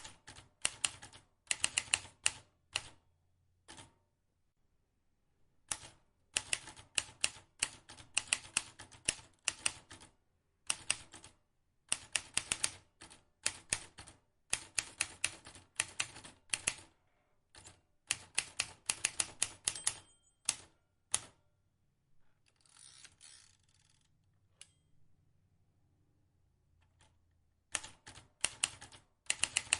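Vintage manual typewriter being typed on: runs of rapid key strikes separated by short pauses. About three-quarters of the way through, the strikes give way for a couple of seconds to a longer rasping sound before typing resumes near the end.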